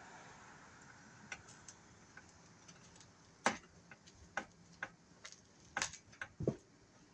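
Hand screwdriver working a screw into the metal mounting bracket of a light-fixture electrical box: a scattering of sharp, irregular clicks and taps.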